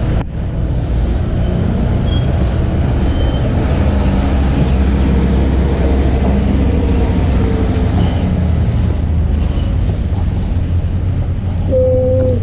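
KTM RC 200's single-cylinder engine running steadily, with a low, even hum. A short held tone sounds near the end.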